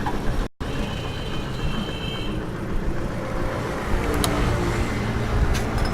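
Steady road-vehicle and traffic noise, mostly low-pitched, breaking off for an instant about half a second in.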